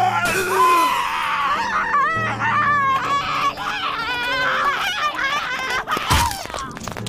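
A cartoon character screaming in pain, high-pitched and warbling, followed by a sudden sharp pop about six seconds in as her head bursts.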